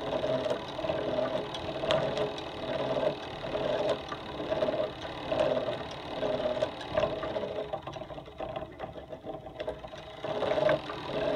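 Antique bipolar school dynamo turned by hand through a large wheel and perforated leather belt, whirring with a steady rhythmic pulse and a few light ticks. It is generating current to light a small bulb. It dips for a couple of seconds late on, then picks up again.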